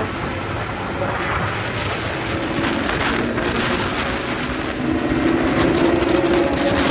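Wind rushing over the microphone while riding a motorcycle, with the engine droning steadily underneath; the engine note grows a little louder after about five seconds.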